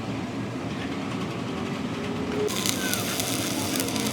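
Steady low traffic and workshop noise, then a crackling, sizzling hiss starting abruptly about two and a half seconds in: an electric arc welder striking up.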